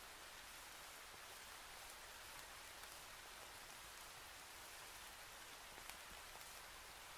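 Near silence: a faint, steady hiss with a few tiny ticks scattered through it.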